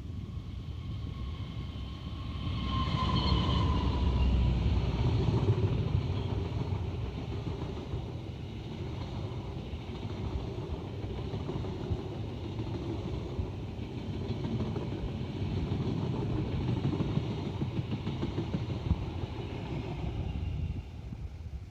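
Diesel-locomotive-hauled express train passing at speed. It swells loudest about three seconds in with a brief high whine, then a long steady rumble of the carriages on the rails that drops away near the end.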